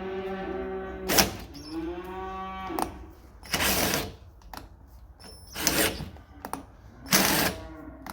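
Drill running an M8 tap in and out of a classic Mini door-hinge hole to cut a new, larger thread where the old stud snapped. A pitched motor whine dips and recovers about two seconds in, then short harsh bursts of noise come every second or two as the tap is driven in and backed out.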